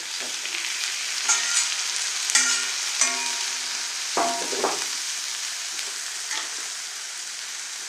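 Onions and green chillies sizzling in hot coconut oil in an iron kadai while crumbled cooked goat blood is tipped in and stirred with a steel ladle. Ringing metal clinks of steel on the pan come one to three seconds in, and a couple of sharper scrapes a little after four seconds.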